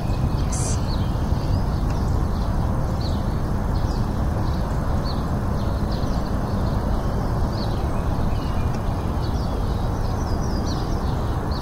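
Steady low rumbling noise with small birds chirping in short, scattered calls throughout.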